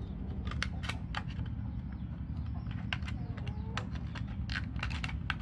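Scissors cutting a thin plastic water bottle: irregular sharp snips and crackles of the plastic, over a steady low hum.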